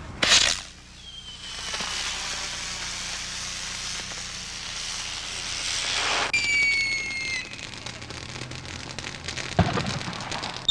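Fireworks going off: a sharp bang just after the start, then several seconds of steady hissing and crackling. About six seconds in comes a short whistle falling slightly in pitch, followed by scattered crackles and another pop near the end.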